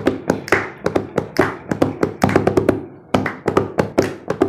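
Bare hands drumming a quick, steady rhythm on the seat of a red plastic stool used as a makeshift drum, about three to four strikes a second, with a brief break about three seconds in.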